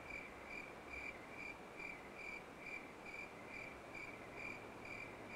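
A cricket chirping faintly and steadily at night, about two even chirps a second.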